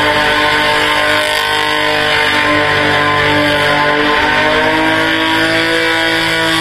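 Background rock music with electric guitar chords, changing chord about two-thirds of the way through.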